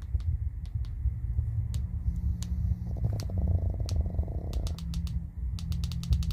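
A sleeping pet snoring with a steady low rumble. About three seconds in, a buzzing rasp lasts nearly two seconds. Scattered sharp clicks come through, more of them near the end.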